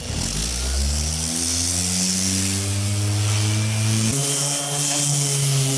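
Random orbital sander starting up and running against a painted boat hull to scuff the paint for repainting. Its motor hum rises in pitch over the first two seconds as it spins up, then jumps to a higher steady pitch about four seconds in.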